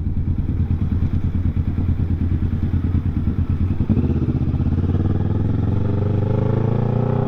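Kawasaki Ninja 650 parallel-twin engine running through a Villain shorty slip-on muffler. It pulses steadily, then from about halfway the revs climb gradually. There is no backfire, which the owner takes to mean the new muffler has no exhaust leak.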